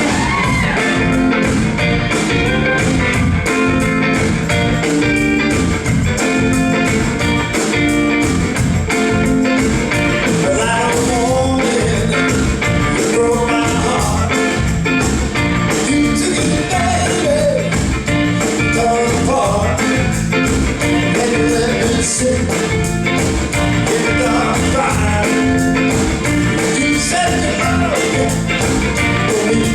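A live band playing blues-flavoured rock and roll, with electric guitar over a steady drum beat.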